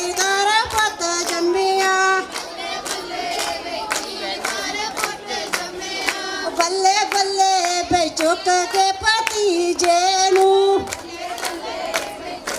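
Group of women singing Punjabi boliyan together in a high chorus, with hands clapping in a steady rhythm. About eleven seconds in the singing drops away while the clapping goes on.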